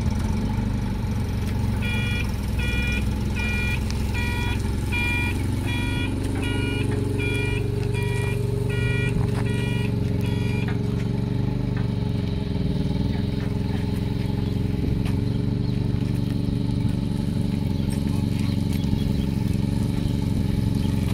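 Propane forklift engine running steadily while it moves a golf cart on its forks. From about two seconds in, its reverse alarm beeps about one and a half times a second for some nine seconds, then stops while the engine keeps running.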